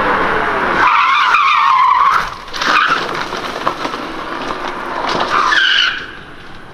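Opel Corsa-e electric rally car cornering hard: the motor's whine falls in pitch as it slows, then the tyres squeal through the corner several times, the last squeal just before the car goes out of hearing.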